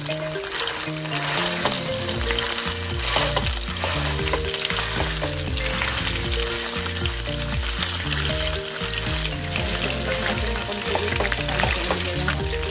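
Ground pork sizzling and crackling in hot oil with onion and garlic in a nonstick frying pan, while a wooden spatula stirs and breaks up the meat.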